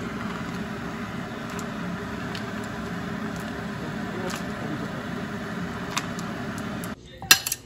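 Steady rushing kitchen background noise with faint clinks of chopsticks and a slotted spoon working chicken pieces through an ice-water bath. About seven seconds in the rushing cuts off abruptly, and a couple of sharp clinks follow.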